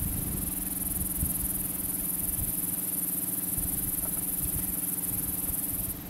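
Steady high-pitched buzz of an insect chorus over an irregular low rumble.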